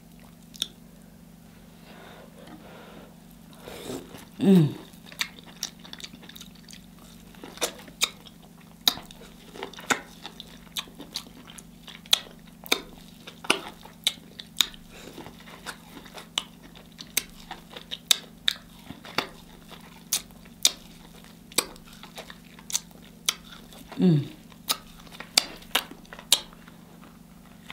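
Chewing and biting of sauce-dipped corn on the cob, with many short wet mouth clicks and smacks a few times a second. Two short hums of enjoyment, about four seconds in and near the end.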